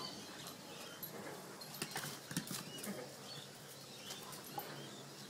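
Tibetan mastiff puppy playing on a flagstone patio: a cluster of irregular clicks and taps about two seconds in, over a low background hiss.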